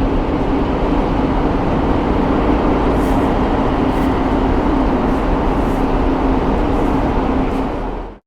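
Subway ambience: a steady low rumble with a constant hum and occasional faint hisses, like a metro train running underground. It fades out just before the end.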